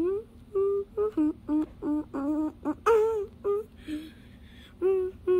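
A voice humming a tune in short, separate notes that step up and down in pitch, about two to three notes a second, with a brief breath about four seconds in.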